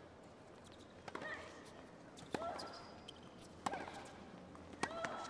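Tennis ball struck back and forth with rackets in a baseline rally: four crisp hits about a second and a quarter apart, each followed by a short pitched sound.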